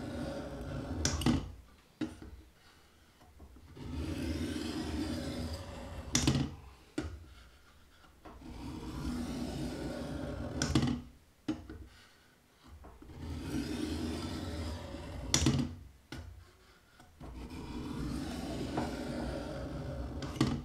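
Kitchen knife blade stroked slowly across a sharpening stone, making a long grinding scrape of about two and a half seconds. It repeats five times, about every four and a half seconds, and each stroke ends in a short sharp tick.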